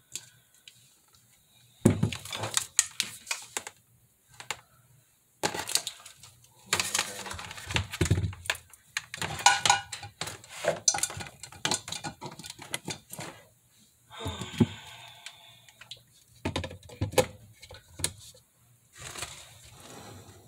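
Kitchen items being handled, clattering and knocking in irregular bursts with short quiet gaps between them.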